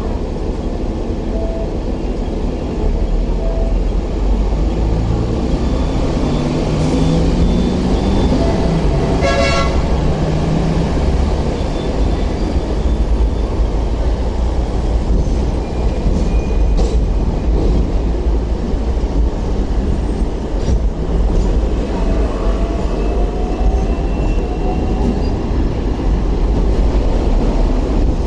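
Hong Kong double-decker tram running, with a steady low rumble from the car and its wheels on the rails. A rising whine comes from the motors as it pulls away in the first few seconds. A short toot sounds about nine seconds in.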